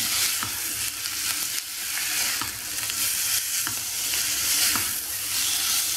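Diced chicken breast and onion sizzling in olive oil in a frying pan, stirred with a plastic spatula that scrapes and taps the pan about once a second.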